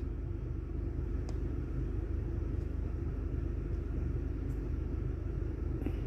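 Steady low rumble of the Chery Tiggo 8 heard inside its cabin, with a few faint clicks.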